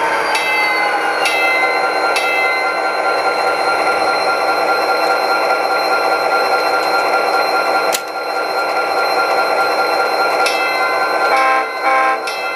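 HO-scale model diesel locomotive's sound decoder: the engine sound drops in pitch as the locomotive slows to a stop, then runs steadily at idle. A sharp click about eight seconds in, and two short horn blasts near the end.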